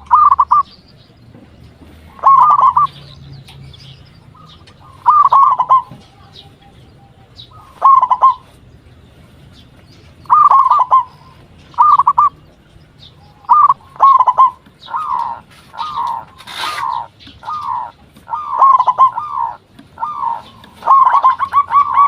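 Local zebra dove (perkutut) singing its cooing song: short phrases of rapid, bubbling coo notes repeated every two to three seconds, coming closer together in the second half.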